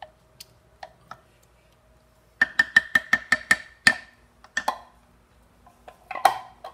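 Wooden spoon tapped on the rim of a stoneware crockpot insert, knocking off cream of mushroom soup: a quick run of about nine taps, each with a short ring, over a second and a half, then a few scattered knocks, the loudest near the end.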